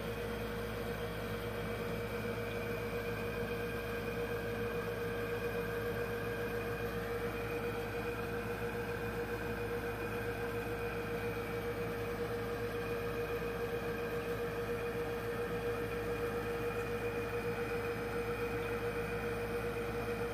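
Steady hum with a soft hiss of an aquarium air pump running a sponge filter.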